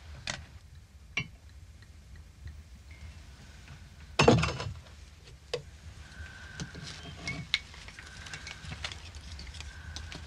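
A spoon clinking and stirring in a porcelain cup, with scattered light taps of crockery being handled and one louder knock about four seconds in.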